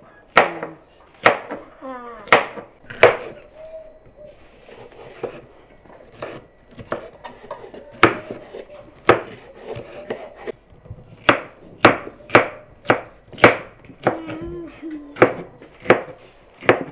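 Knife chopping vegetables on a cutting board, in single sharp cuts at an uneven pace of about one a second that come quicker in the second half.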